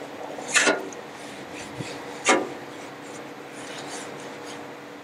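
Metal tongs holding a wad of oiled paper towel scraping and rubbing as the towel is dipped in a small bowl of flaxseed oil and wiped onto a griddle top. There are two sharper scrapes about a second and a half apart, with softer rubbing between them.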